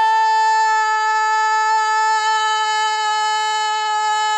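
A voice singing out one long held note, the drawn-out last vowel of 'Nacho!', on a single steady pitch.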